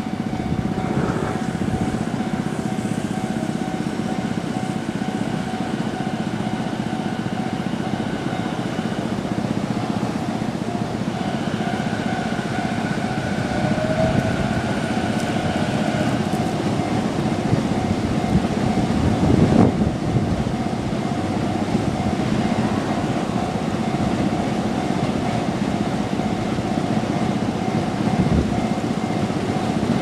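Level-crossing warning bell ringing steadily while a Sotetsu electric commuter train runs over the crossing. The train's running noise builds and is loudest about two-thirds of the way in.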